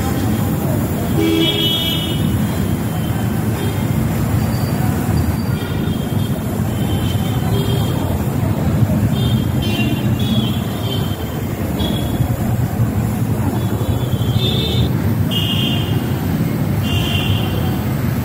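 Gas welding torch burning with a steady rushing hiss while a filler rod is melted into the seam of a cut-open car shock absorber, sealing it after refilling. Several short high-pitched horn toots from traffic sound over it.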